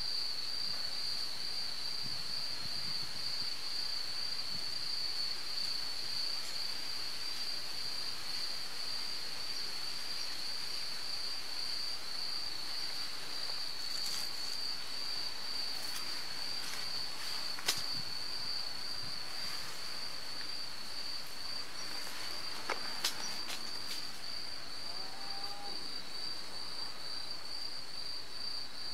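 Crickets trilling in a steady, continuous high chorus. A few short sharp clicks cut in around the middle, the loudest a little past halfway.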